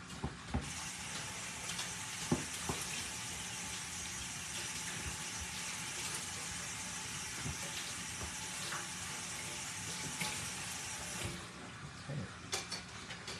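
Kitchen sink faucet running in a steady hiss, turned on about half a second in and shut off about two seconds before the end, with a few light knocks of a spoon stirring in a plastic bowl.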